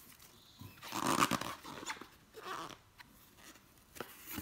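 Hands working at tightly sealed packaging: a few short bursts of rustling and scraping, the loudest about a second in, and a sharp click near the end.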